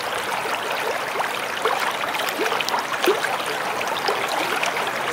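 A stream running over rocks: a steady babbling rush of water with small gurgles.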